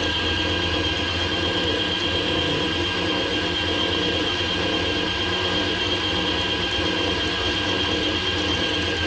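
Shimano Plays 3000 electric fishing reel's motor running steadily, winding line onto its spool under tension, with a steady high whine over a low hum.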